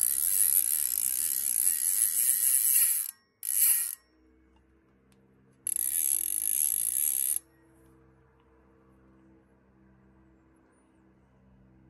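Titanium fly reel's click check ratcheting as the spool is spun, a fast loud clicking buzz. It comes in three runs: a long one of about three seconds, a short one near the fourth second, and a second longer run from about six to seven and a half seconds, then it stops.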